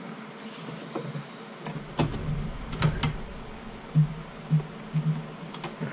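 Scattered sharp clicks and a few short, dull knocks from handling a leather holster and the parts of a leather sewing machine, with no stitching running.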